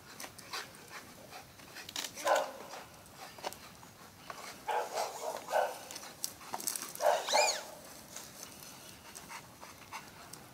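American Staffordshire Terrier barking and yelping excitedly in several short bursts, while it jumps at and tugs on a bicycle tire. One call about seven seconds in rises and falls in pitch.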